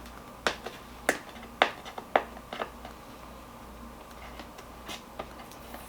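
Hands opening a cardboard product box: about five sharp clicks and snaps in the first half, then faint handling.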